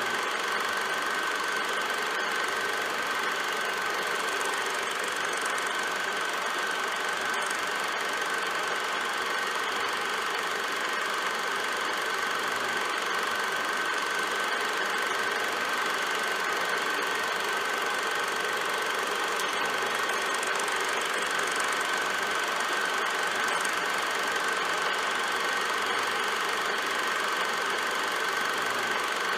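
Film projector running: a steady mechanical whirr with a continuous high-pitched tone through it.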